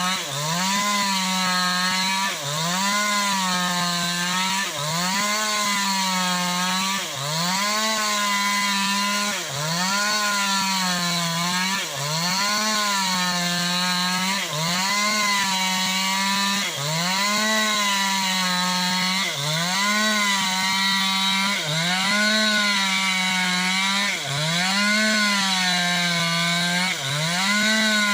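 New West 568 chainsaw at full throttle, ripping bayur wood lengthwise into boards. The engine pitch sags under load and climbs back about every two seconds as the bar is worked through the cut.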